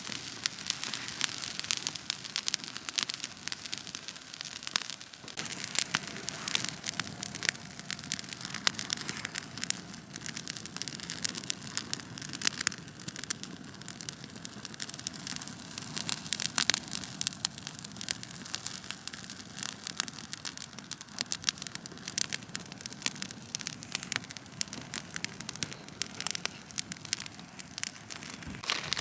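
Wood fire crackling and popping with dense, irregular snaps.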